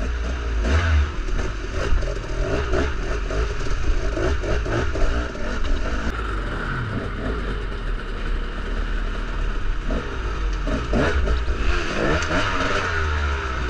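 Dirt bike engine revving up and down as the bike is ridden over rough ground, its pitch rising and falling again and again with the throttle.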